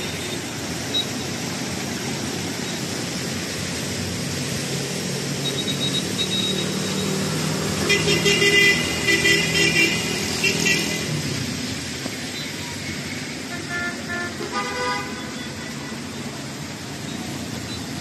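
Street traffic on a wet road: a steady hiss of vehicles and tyres, with car horns honking repeatedly for about three seconds some eight seconds in, and a few more short honks around fourteen seconds.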